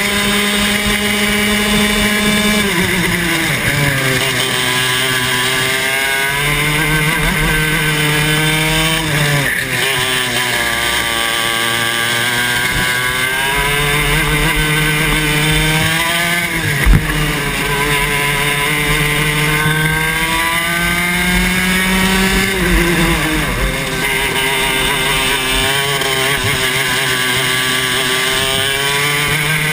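Club 100 TKM 115cc two-stroke kart engine at racing speed, its pitch dropping sharply several times as the throttle is lifted for corners and climbing steadily again along the straights, over wind rush. One sharp knock sounds a little past halfway.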